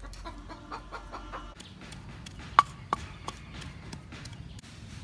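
Chicken clucking, a quick run of short calls in the first second and a half, followed by three sharp knocks about a third of a second apart around the middle, the first the loudest.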